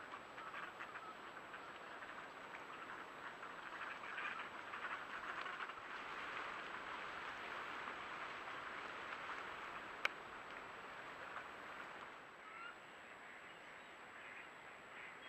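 A large flock of ducks quacking and chattering all at once, a dense continuous clamour that swells in the middle and eases off near the end, with one sharp click about ten seconds in.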